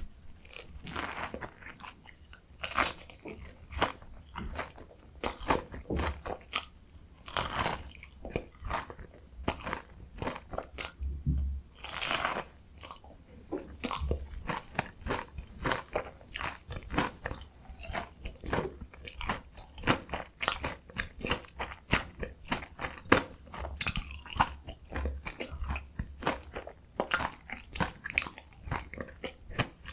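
Close-miked biting and chewing of a fried potato mozzarella corn dog, its crisp crust crunching in dense, irregular crackles with a few louder bites.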